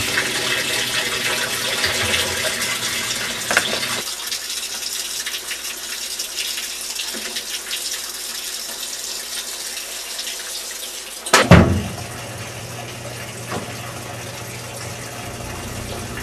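Top-loading washing machine filling with water, a steady rushing hiss, with one sharp, loud thump a little past the middle.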